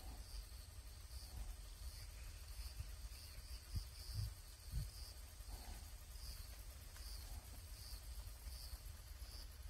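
Faint insects chirping in a steady rhythm, about two short high chirps a second over a continuous high whine, with a low rumble underneath.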